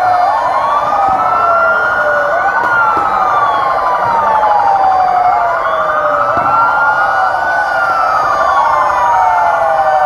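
Two or more fire engine sirens wailing at once, out of step with each other: each rises over a couple of seconds and then falls away more slowly, over and over.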